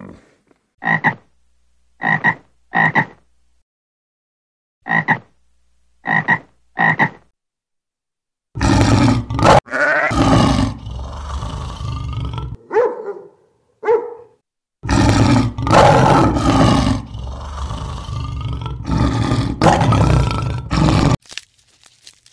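Six short, identical calls come in pairs and a triplet. Then African lions roar loudly in long bouts, with two short, softer grunts in the middle, until near the end.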